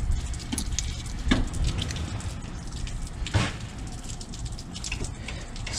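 Light clicks and taps of small metal parts being handled as a C-frame fan motor is taken apart by hand, with a few sharper clicks, over a steady low rumble.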